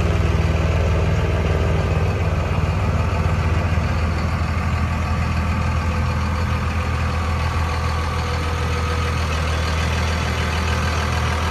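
A 2002 Dodge Ram 2500's 5.9 Cummins inline-six turbo-diesel idling steadily. It is heard from behind the truck at the tailpipe and gets a little quieter after about four seconds.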